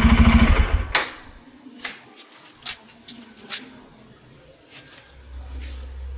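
Bajaj Pulsar N250's single-cylinder engine running with an even pulsing beat, then switched off about a second in. A few light clicks and knocks follow, and a low hum comes in near the end.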